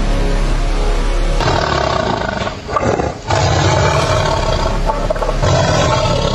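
Lions roaring: loud, long roars one after another, with a short break about three seconds in.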